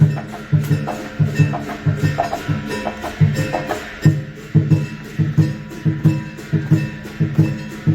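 Background music with a steady, pulsing bass beat and light percussion.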